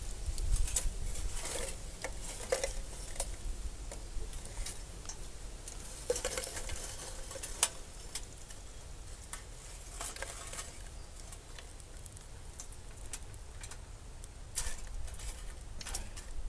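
Lit coconut charcoal pucks sliding out of a metal chimney starter into a steel grill ring, clinking and clattering against the metal and each other in irregular knocks.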